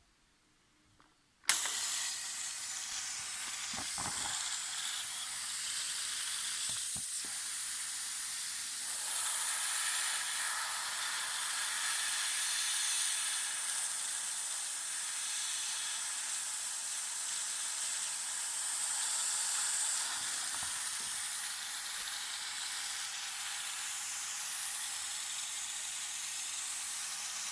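Steady hiss of compressed air from a homemade minimum-quantity lubrication system's spray nozzle, which starts abruptly about a second and a half in, with a few faint knocks under it.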